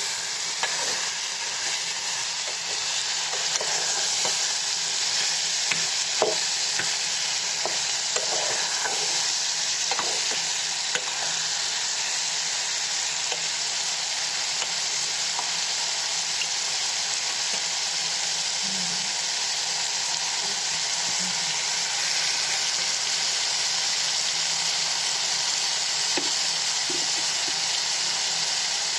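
Vegetables sizzling steadily in hot oil in a pan, with a spatula stirring and scraping against the pan now and then, most often in the first ten seconds.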